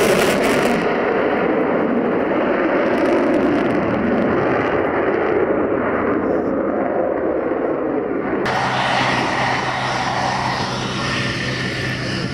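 F-22 Raptor's twin F119 turbofans running in afterburner, a loud rushing roar whose high end fades as the jet pulls away. About eight and a half seconds in it cuts abruptly to the steadier hum and high whine of the jet's engines at low power while taxiing.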